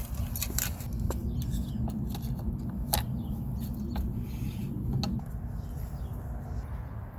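Scattered light clicks and taps as the doorbell's plastic mounting wedge is fitted and screwed onto the wall over existing screw holes, over a steady low hum.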